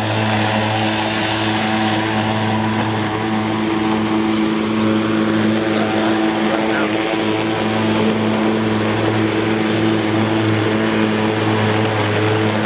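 DeWalt FlexVolt 60V cordless electric push mower running under load, its blade spinning with a steady hum as it cuts wet, dewy grass.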